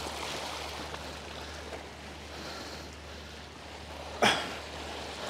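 Small sea waves washing around shore rocks, a steady rushing. About four seconds in, a single short sharp sound stands out louder than the water.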